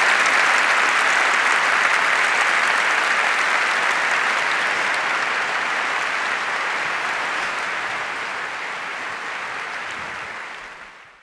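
Large audience applauding steadily after a talk, slowly dying down and fading out near the end.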